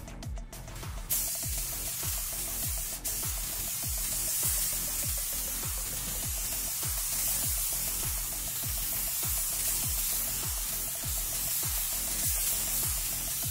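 Background music with a steady beat of about two thuds a second, over the steady hiss of a gravity-feed paint spray gun laying down base coat at about 25 psi; the hiss starts about a second in.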